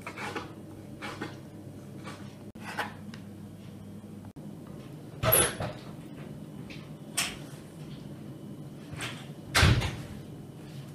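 A knife tapping lightly on a wooden cutting board as cooked chicken is cut into strips. Then the wooden board knocks against a plate as the shredded chicken is pushed off it: two loud thumps, about five and nine and a half seconds in, the second the louder and deeper.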